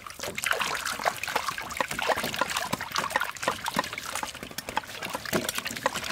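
Water splashing and trickling as hands rub and turn peeled green mangoes in a metal basin of water, a quick, irregular run of small splashes.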